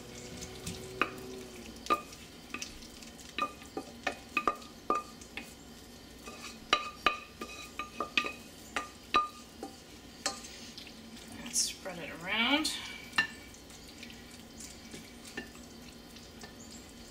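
Metal spoon scraping and clinking against a stainless steel saucepan and a ceramic casserole dish as thick creamy pot-pie filling is scooped out. The knocks are irregular, and there is a longer scrape that slides up and down in pitch about twelve seconds in.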